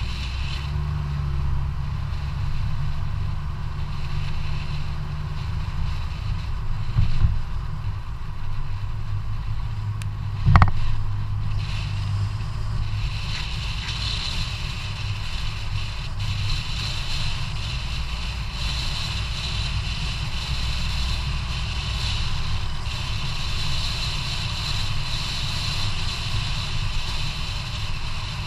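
Wind buffeting the microphone of a bicycle-mounted action camera over the steady rumble of tyres on asphalt. Two sharp knocks come about seven and ten and a half seconds in, the second the louder, and a higher hiss grows from about twelve seconds in.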